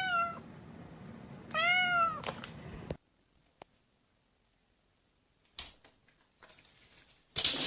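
A cat meows once, a single call that rises and then falls, about one and a half seconds in. A short click and brief rustling noises follow later.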